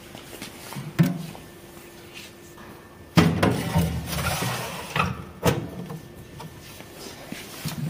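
Plastic reagent bottles being set down and slid on the stainless-steel shelf of a tissue processor's reagent cabinet: a knock about a second in, then a louder run of scraping and bumping about three seconds in, ending in two sharp knocks.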